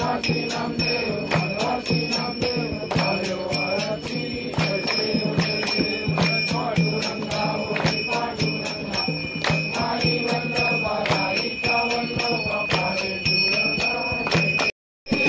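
Devotional aarti music with bells jingling and ringing over a steady rhythmic beat, with a melodic voice or instrument line. It cuts out to silence for a moment near the end.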